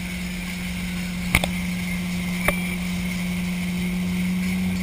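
Motorboat engine running steadily at towing speed, with the rush of wind and churning wake, its pitch edging up slightly near the end. Two sharp knocks stand out, a little over a second in and again at about two and a half seconds.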